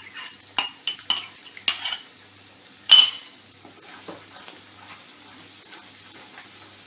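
A metal spoon clinks several times against a glass bowl and the wok rim as curd is scraped out, with one louder clank about three seconds in. After that the curd and onion masala sizzle gently in the hot non-stick wok as a spatula stirs them.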